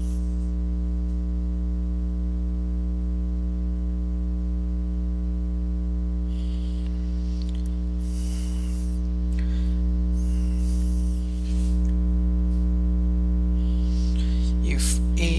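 Steady electrical mains hum with a stack of overtones, picked up by the recording setup, with a few faint soft hisses in the middle.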